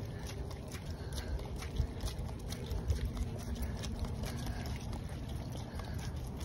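Footsteps of two Samoyeds and their walker on a wet sidewalk: a quick, irregular run of light clicks and scuffs from paws and shoes, over a low rumble.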